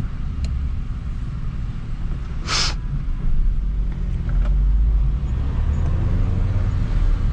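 Engine and road noise of a Ford New Fiesta 1.6 heard from inside its cabin while driving, a steady low rumble that swells from about three seconds in. A short, sharp hiss cuts in about two and a half seconds in.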